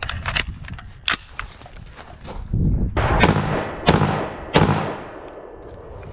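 A few metallic clicks as a magazine is seated and the rifle readied, then three gunshots from a Rock River CAR A2 AR-15 carbine, about two-thirds of a second apart, each with a short ringing echo.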